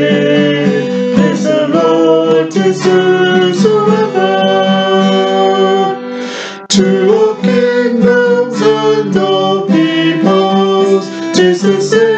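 A man and a woman singing a hymn together to a strummed acoustic guitar. About six seconds in the sound dips briefly, then a hard strum comes in.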